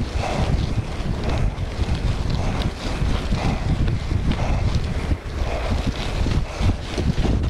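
Wind rumbling on an action camera's microphone as a mountain bike rolls along a narrow dirt and gravel trail, with tyre crunch and small clicks and rattles from the bike.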